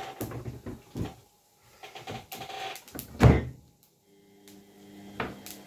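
Kitchen handling noises: a few scattered clicks and knocks, with one louder thump about three seconds in.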